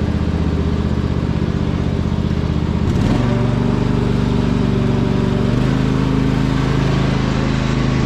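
Riding lawn mower engine running steadily under load; its note steps up about three seconds in and shifts again a little past halfway.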